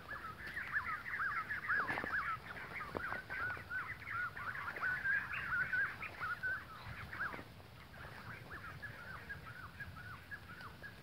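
Bird calls: a fast run of short, arched chirping notes, dense and overlapping for about the first seven seconds, then thinning to fainter scattered chirps.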